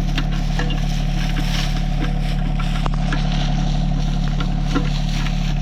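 Compact tractor's diesel engine running steadily under a backhoe being operated, with a few short higher whines as the hydraulic controls are worked.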